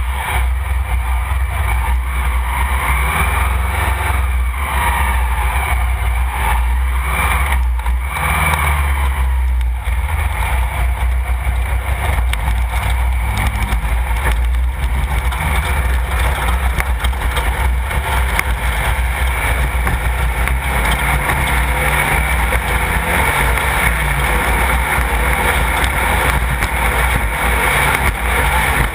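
Class 1600 off-road race car with an air-cooled 1600 cc VW engine running on the move, steady and loud over a heavy low rumble.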